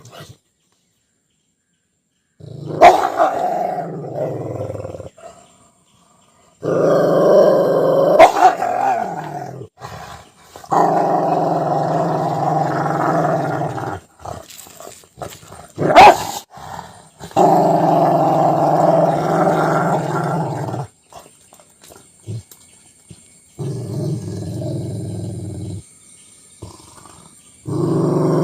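A dog growling at its food, in long rumbling growls of a few seconds each with short pauses between them. A few sharp barks or snaps break in.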